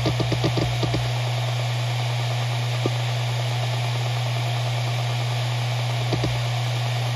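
Maxtor MaXLine Pro 500 7200 RPM hard drive spinning with a steady hum, its heads seeking in a rapid run of clicks, about five a second, that stops after the first second. A single click follows in the pause, and the clicking starts again near the end.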